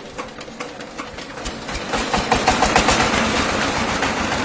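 Single-cylinder horizontal diesel engine that drives a circular saw bench, chugging at low speed with slow even beats, then speeding up and getting louder about two seconds in.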